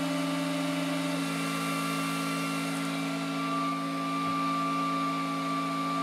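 Flsun S1 3D printer's cooling fan running loud and steady, a whine of several held tones over an airy hiss, with a higher tone joining about halfway through.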